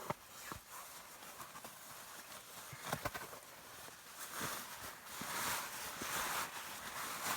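Someone moving about on foot and handling things: scattered light knocks and crunches, with rustling that swells about halfway through.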